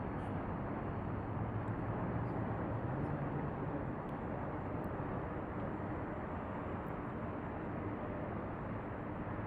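Steady distant rumble of jet aircraft heard across the airfield, with a low hum that swells and rises slightly about a second in, then settles.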